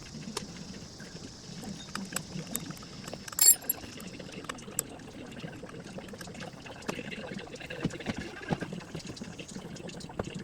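Transmission oil pouring in a steady trickle from a drain hole into a drain pan, with scattered small clicks and one sharp metallic clank about three and a half seconds in.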